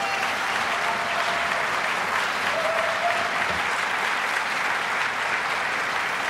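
Large audience applauding steadily, many people clapping at once.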